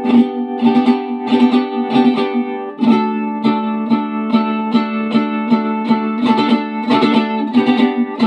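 Flamed-cedar Mexican vihuela with a Spanish-style round soundhole, strummed in a steady rhythm, the chords ringing out at two to three strokes a second, with a chord change about three seconds in.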